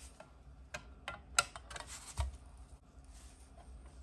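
Light clicks and taps of small kit parts being handled and set down on a work surface, the sharpest about a second and a half in, followed by a soft thump.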